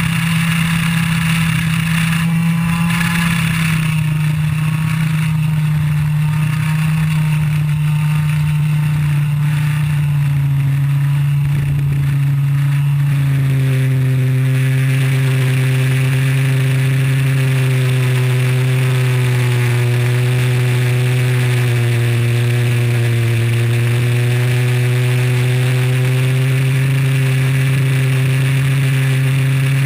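IAME Leopard 125cc two-stroke kart engine running hard at high revs. Its pitch drops about a third of the way in as revs fall from around 10,000 to 7,000 rpm, holds lower through the corner, and climbs again near the end as the engine pulls back up.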